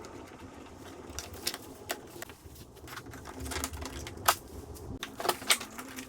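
Scattered clicks and knocks of tools and plastic trim on a 2000 Lexus RX300's door as the interior door panel is worked loose, its clips already loosened from an earlier removal.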